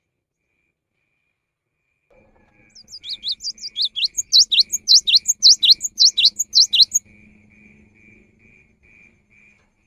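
Cinereous tit (gelatik batu) singing a fast run of repeated sharp notes, about four a second, starting about three seconds in and stopping about seven seconds in. Fainter notes follow.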